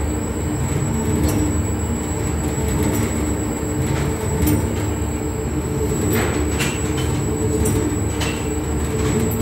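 Industrial xanthan gum mixer running: a steady motor and drive hum as its stainless steel arms churn a thick paste, with a few brief clicks and scrapes.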